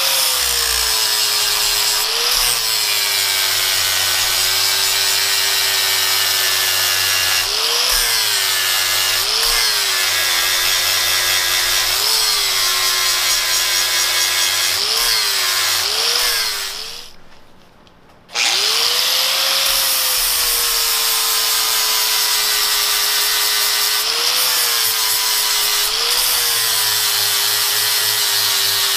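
Electric angle grinder grinding a cast iron part held in a vise, its motor whine wavering in pitch as the load on the wheel changes. It winds down and stops about 17 seconds in, then starts up again about a second later and keeps grinding.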